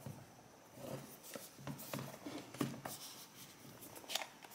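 Hands handling a rigid white cardboard box and opening its flip-top lid: faint rubbing of fingers on card with scattered light taps and scrapes.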